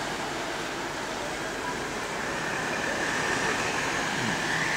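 Steady outdoor traffic noise from the street below, with one vehicle's engine note falling as it passes partway through and a higher engine tone rising near the end.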